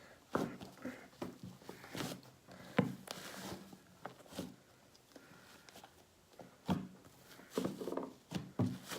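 Hands kneading and squeezing sticky slime, giving irregular wet squelches and small pops.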